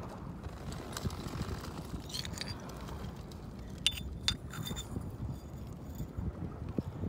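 Wind rumbling on the microphone, with a few light clinks of pottery and glass shards knocking against beach pebbles as they are handled, about two seconds in and again about four seconds in.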